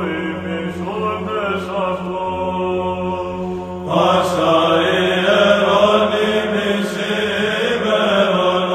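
Orthodox Byzantine chant for Pascha (Easter), sung by men's voices over a held drone note. About four seconds in, more voices come in and the singing grows fuller and louder.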